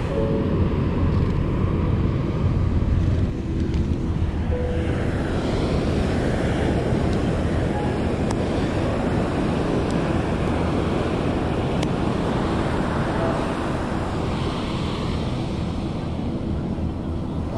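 Ocean surf washing on a beach, with wind rumbling on the microphone, heaviest in the first few seconds.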